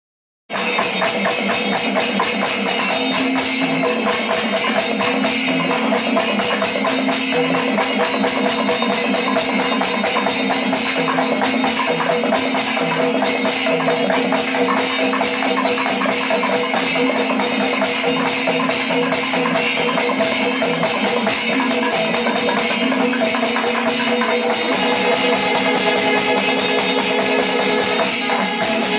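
Kerala temple percussion ensemble (panchavadyam) playing continuously, with metal cymbals jingling over the drums and a steady held drone.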